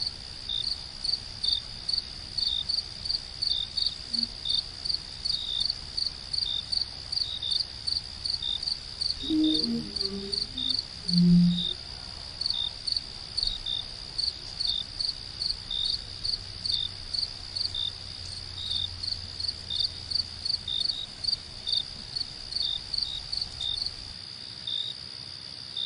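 Crickets chirping: a steady high trill with rapid, regularly repeated chirps above it. A few brief low sounds come around the middle, the loudest a short low one near the halfway point.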